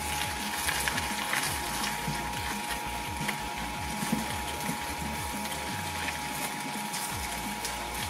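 Small twin-shaft shredder running, its toothed steel cutters turning and chattering against a whole cauliflower resting on them, with a constant thin whine under many small clicks and scrapes.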